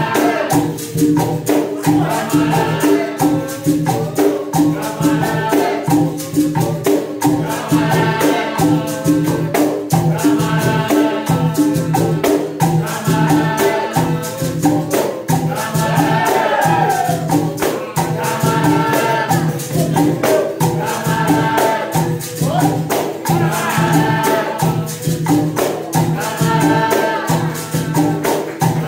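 Capoeira angola roda music: berimbaus, pandeiros and an atabaque playing a steady rhythm, with group singing in phrases that recur every couple of seconds.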